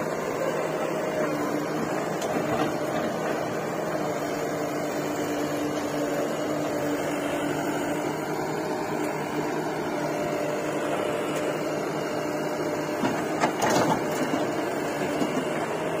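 Heavy diesel engine running steadily at constant speed, with a mechanical clatter over its drone. A short clank near the end.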